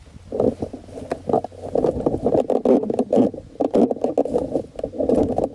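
Ford Bronco II door trim panel being pried and pulled away from the door, with uneven scraping and rattling and many sharp clicks throughout.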